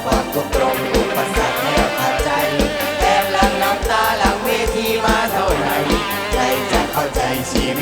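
Live Isan band music: a fast, steady drum beat under a wavering melody line.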